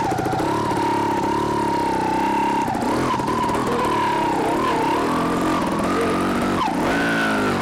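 Two-stroke single-cylinder engine of a TRS RR 300 trials sidecar outfit, running at low speed with the revs rising and falling under the throttle. The revs rise sharply about seven seconds in.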